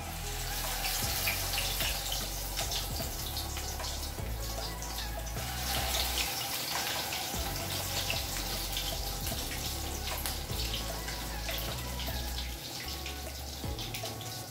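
Bread slices soaked in an egg-and-milk batter sizzling and crackling as they deep-fry in hot oil in a pot, with a steady hiss and many small pops. The sizzle swells about a second in as the first slice goes into the oil.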